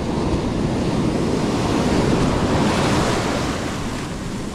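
Ocean surf breaking on the beach: a wave's wash swells to its loudest about two to three seconds in and then eases off, with wind rumbling on the microphone.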